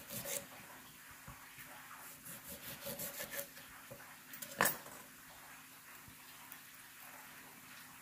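Kitchen knife cutting a lime into wedges on a wooden cutting board: soft cuts and taps, then one sharp knock on the board about four and a half seconds in.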